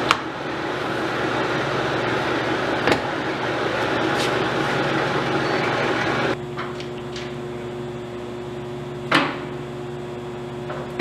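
Okuma LS geared-head engine lathe running, its spindle and gearing giving a steady hum with a rushing noise over it, and a few sharp clunks. About six seconds in the rushing noise drops away, leaving a quieter steady hum.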